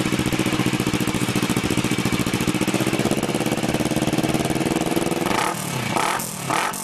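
Kawasaki ER-6n parallel-twin engine running through a Roncar SS aftermarket exhaust in polished aluminium. It idles steadily for about five seconds, then is revved in a few quick throttle blips near the end.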